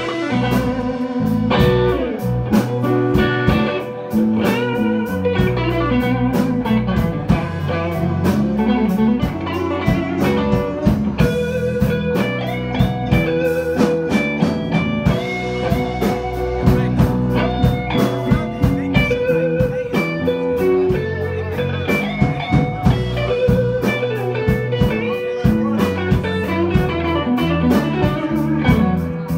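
Electric guitar played live through an amplifier: a blues, with notes changing continuously and no break.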